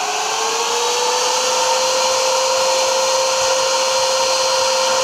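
A pair of 12-inch ProForm brushless electric radiator fans finishing their soft-start ramp: the whine rises slightly in pitch for the first second or so, then holds steady at full speed over a strong rush of air.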